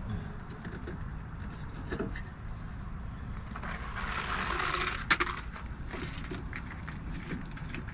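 Plastic RV sewer hose being handled and set into a dump station inlet, with scattered light clicks, a rustling hiss about four seconds in, and a sharp click or knock just after. A steady low rumble runs underneath.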